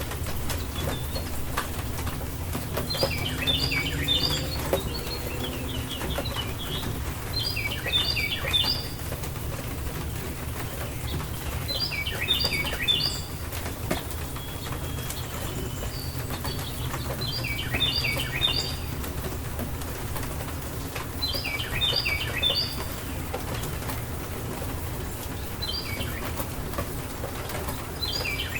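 A songbird repeating a short phrase of quick, high notes about every four to five seconds, over the steady low noise of a rainstorm.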